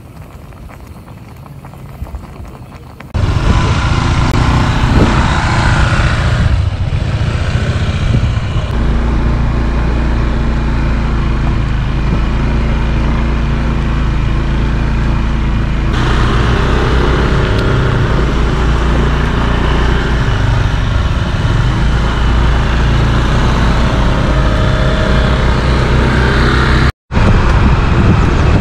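Motorcycle riding sound, filmed from the bike: a steady engine note under loud wind rushing over the camera's microphone. It starts suddenly about three seconds in after a quiet opening, with a brief dropout near the end.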